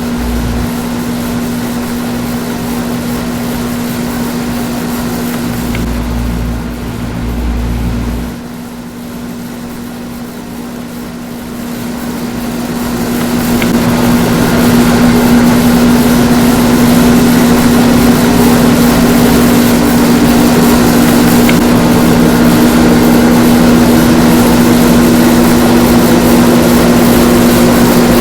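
Panasonic inverter air conditioner running with a steady mechanical hum. It dips slightly about eight seconds in, then grows louder over a few seconds, and a second tone slowly rises in pitch near the end as the inverter unit speeds up.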